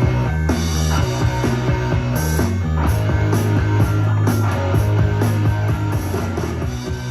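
Rock music with guitar and a heavy, steady bass, played back through a 1996 Bose RoomMate powered speaker. It begins to fade near the end.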